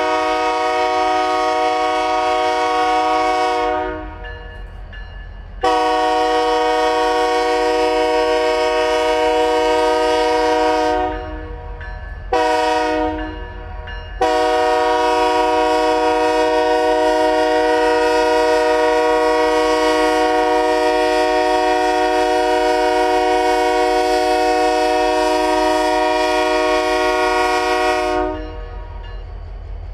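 A BNSF diesel locomotive's multi-tone air horn sounds the grade-crossing signal: long, long, short, then a final long blast held until near the end. A low diesel rumble from the passing locomotives runs beneath it and continues after the horn stops.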